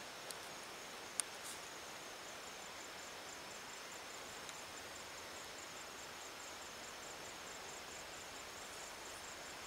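Quiet rural ambience: an insect chirping in a steady, rapid run of high pulses over a soft hiss, with one sharp click about a second in.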